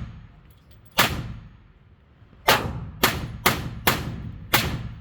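Six gunshots at an indoor shooting range, each with an echoing tail: a single shot about a second in, then five shots fired in quick succession.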